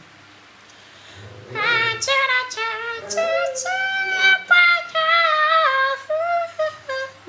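A man singing unaccompanied: wordless, high-pitched vocal runs and held notes, starting about a second and a half in.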